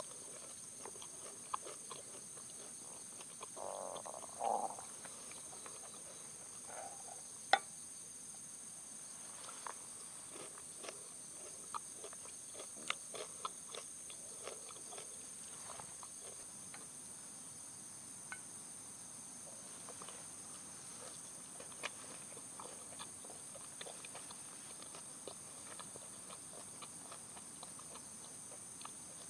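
Faint steady high-pitched trilling of insects, with scattered small clicks and taps and a brief louder call about four seconds in.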